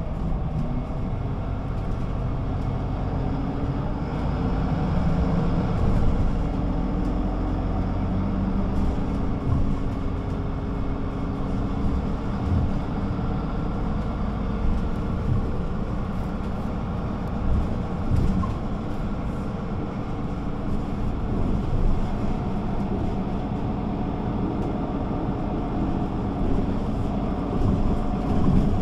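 Güleryüz Cobra GD 272 city bus engine running while the bus drives, its note rising and falling with the driving, with occasional low knocks and rattles.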